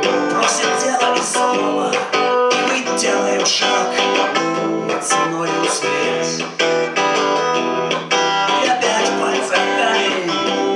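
Acoustic guitar strummed in a steady rhythm, an instrumental passage of a song with no voice on top.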